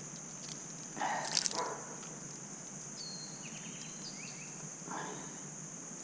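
Insects droning in a steady, high, even buzz, with a few short bird chirps in the middle. A brief louder noise about a second in, and a smaller one near the end.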